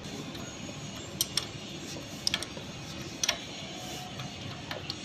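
A few sharp clicks at irregular intervals, several in quick pairs, over a low steady hum.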